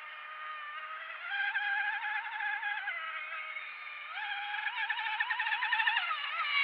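High-pitched whine of an RC outrigger race boat's brushless motor (HK2218 2500KV on a 6S LiPo) spinning a 29er aluminium propeller. The pitch steps up and down several times as the throttle changes through the laps.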